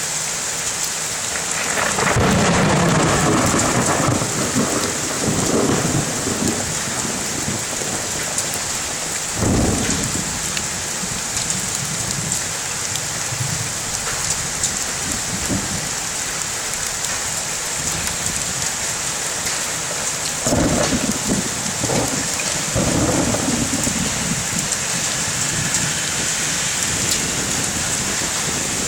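Heavy rain falling steadily in a thunderstorm, with three bouts of rumbling thunder: a long one starting about two seconds in, a short one near ten seconds, and another starting about twenty seconds in.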